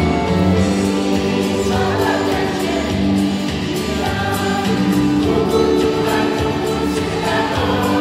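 Mixed church choir of women and men singing a gospel song together into microphones.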